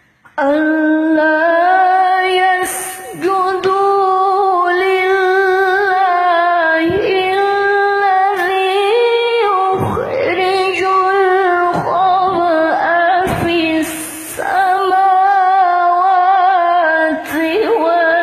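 A young woman's voice reciting the Qur'an in melodic qiroah style, holding long ornamented notes that waver around one pitch. She breaks off several times for short breaths.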